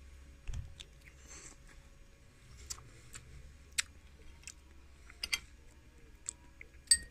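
A spoon clinking and scraping in a small ceramic bowl of shrimp paste, with chewing of crisp unripe mango. The clicks come singly, about one a second. The loudest is a ringing clink near the end.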